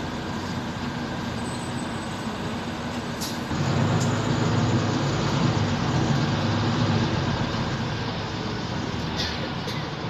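Mercedes-Benz Citaro bus heard from inside the passenger saloon while under way: a steady engine and road drone that grows louder about three and a half seconds in, holds, and eases off near the end. Two faint clicks, one a few seconds in and one near the end.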